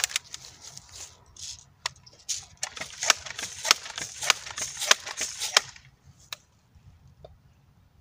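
A Crosman M4177 multi-pump air rifle being pumped. There are about half a dozen quick strokes a little over half a second apart, each a hiss of air ending in a sharp click, and they stop about six seconds in as the rifle is charged for the next shot.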